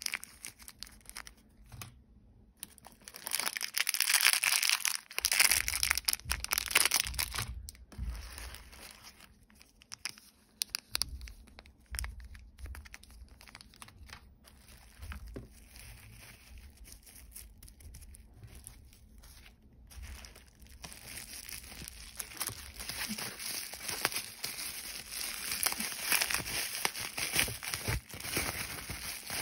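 Plastic packaging crinkling and rustling as bubble wrap and cellophane bags are handled and pulled off slime containers. It comes in louder spells, one starting about three seconds in and lasting several seconds and another over the last eight seconds or so, with quieter handling between.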